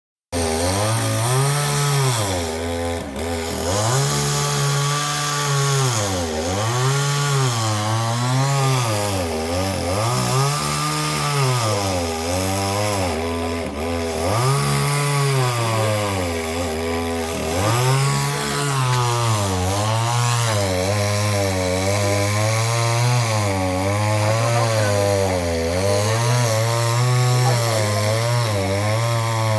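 Chainsaw cutting a tree, its engine pitch rising and falling about every two seconds through the first half, then wavering in smaller, quicker swings.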